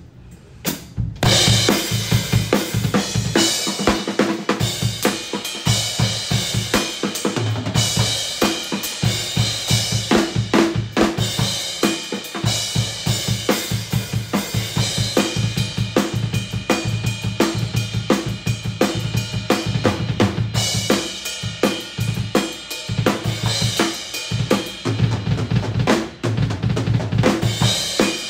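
Acoustic drum kit played fast and hard. Dense kick drum and snare strokes run under ringing Zildjian and Sabian cymbals, starting about a second in.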